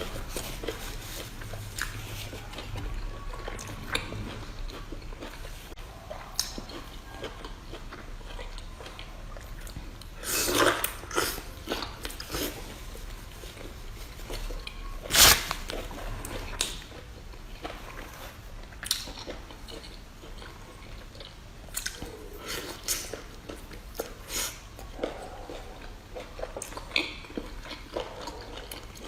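Close-miked eating: chewing and biting into seafood, with scattered sharp clicks and one loud knock about fifteen seconds in.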